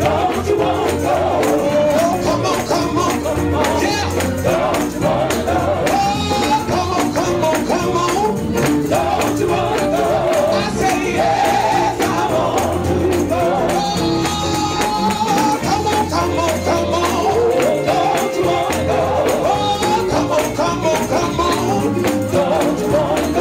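Live Pentecostal-style gospel music: voices singing a call-and-response chorus over a tambourine shaken and struck in a fast, steady rhythm.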